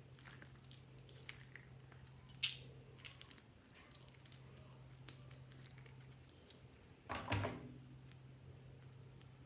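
Slime being handled and squished by hand: a few soft, short squishes and pops, with a longer, louder squelch about seven seconds in, over a faint steady hum.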